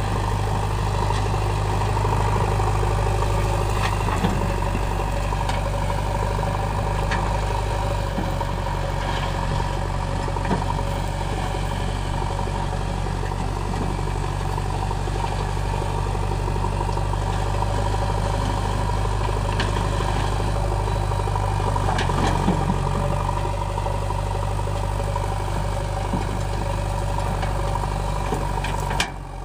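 JCB backhoe loader's diesel engine running steadily as the front bucket pushes and grades soil, its note shifting slightly about eight seconds in and again a little after twenty seconds, with a few light knocks.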